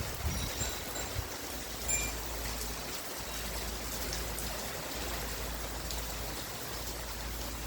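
Steady heavy rain falling, with a wind chime tinkling faintly a few times, mostly in the first two seconds.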